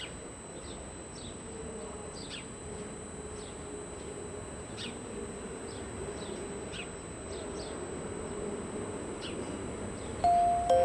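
Steady low buzzing hum of a Bombardier ZGC TER electric multiple unit rolling slowly over the station approach tracks, with short high downward chirps every second or so. Just before the end, a few bright, clear chime-like notes come in, louder than the train.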